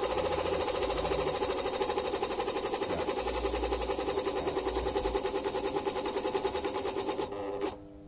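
Electric motor running with a fast, even rattling pulse, then cut off abruptly about seven and a half seconds in, leaving a faint steady hum.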